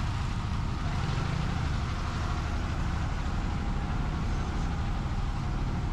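Steady low rumble of motor vehicle engines amid busy street noise.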